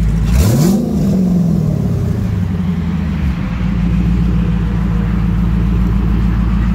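Chrysler 300C's swapped-in 6.1-litre SRT8 Hemi V8 running through an upgraded exhaust, idling, then blipped once about half a second in: the revs rise and drop back within about a second before it settles to a steady idle.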